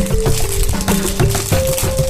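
Music track: a tune of held notes stepping up and down over a bass line, with rattling percussion ticking throughout.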